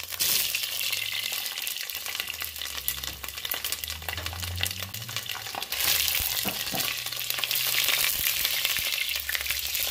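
Whole red jalapeño peppers frying in hot oil in a pot: a continuous crackling sizzle, spitting as the moisture in the peppers meets the oil. It grows louder about six seconds in, as a spatula turns the peppers.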